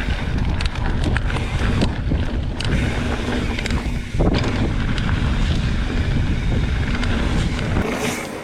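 Wind buffeting the microphone of a mountain biker's camera while riding, a steady low rumble with scattered clicks and knocks from the bike and trail. It eases off right at the end.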